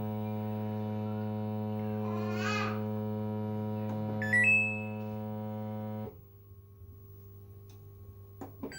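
Switched-off Samsung washing machine humming steadily and deeply, "like a steam locomotive", with a couple of brief high squeals. The hum drops away suddenly about six seconds in, leaving only a faint hum. It is the hum the machine makes with no power, sounding as if water is running.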